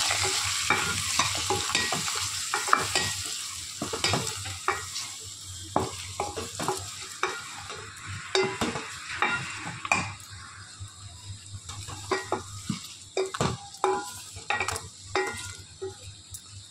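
A wooden spoon stirring stuffed brinjals and tomatoes frying in oil in a metal pot, with frequent knocks and scrapes of the spoon against the pot. The oil sizzles at first, and the sizzle dies down through the second half while the knocks and scrapes go on.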